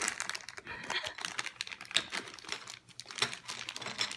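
Small plastic Play-Doh tubs and lids clicking and tapping against each other and the table in a run of irregular light clicks, with some crinkling.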